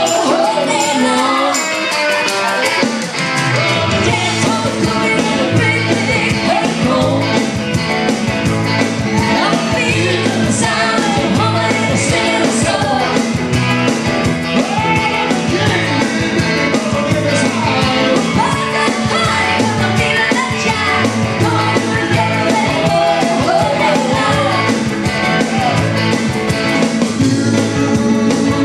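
Live band playing rock-style music, with a woman singing lead over keyboards. A steady bass line comes in about three seconds in.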